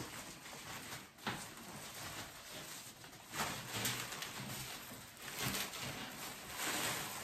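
Clear plastic wrapping rustling and crinkling as it is pulled off a metal trolley shelf panel, in irregular bursts, with a sharp click about a second in.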